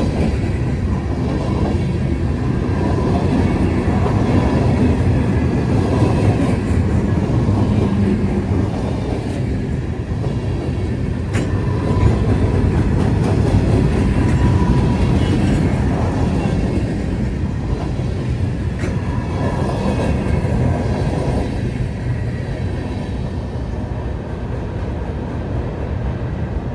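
Freight train cars rolling past in a steady, loud rumble of wheels on rail.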